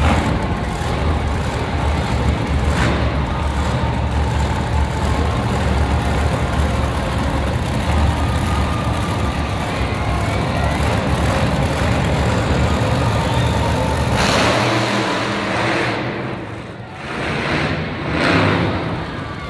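Monster truck engine running loudly under power, a deep steady rumble. About fourteen seconds in the low rumble falls away and a broader rushing noise takes over.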